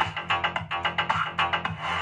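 Electronic dance music with a steady bass line and quick beats, played from a phone through a small amplifier board and a bare woofer while its tone controls are being adjusted.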